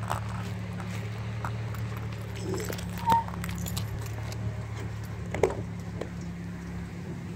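Cammed engine of a 2001 SS idling cold with a steady low hum. A short high chirp about three seconds in and a sharp click a couple of seconds later.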